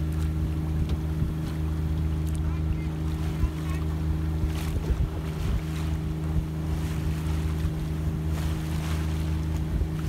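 A motorboat's engine running at a steady, even drone, with wind buffeting the microphone and water rushing and splashing past the hull.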